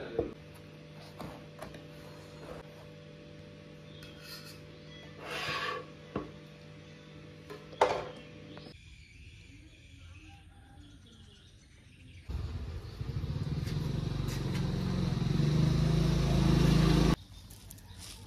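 A serrated knife slicing a sponge cake in a cardboard box, with a few sharp clicks and short rustles. Later a loud, deep rushing noise builds for about five seconds and cuts off suddenly.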